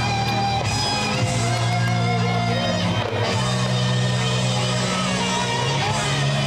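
Music playing, with held low notes that change every second or two. No fireworks bangs are heard.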